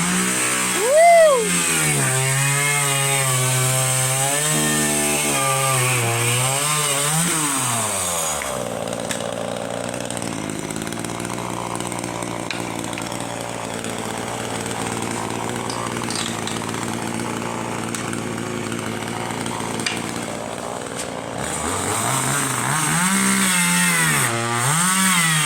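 A small motor revving up and down, its pitch rising and falling over and over, settling into a steadier rougher running in the middle stretch before revving again near the end.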